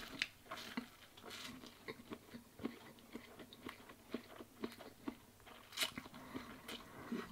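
A man eating a mouthful of instant ramen noodles: chewing and sucking in the noodles, heard as faint, irregular wet mouth clicks and smacks.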